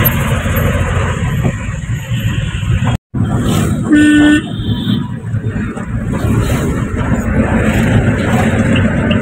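Engine and road noise inside the cab of a moving Mahindra pickup truck, with one short horn toot about four seconds in, the loudest sound. The sound drops out for an instant just before the toot.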